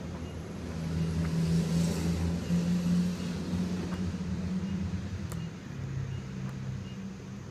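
Delivery truck engine idling, a steady low hum whose note drops slightly about six seconds in.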